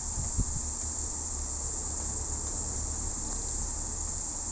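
Steady high-pitched hiss or chirring over a low hum, with a soft knock about half a second in as a paper book page is turned.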